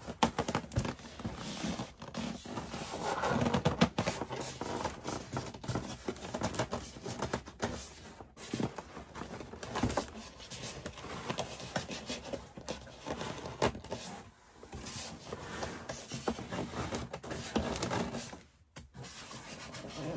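Styrofoam packing scraping and rubbing against a cardboard box as it is pulled loose, with irregular knocks and rustles throughout.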